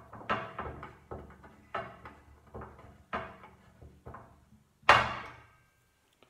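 Light knocks and clicks, about ten at irregular spacing, from handling an Atmos Compact Modern Longbow's limb, washer and limb retaining bolt against the riser and a glass tabletop during takedown assembly. One sharper, louder knock with a short ring comes about five seconds in.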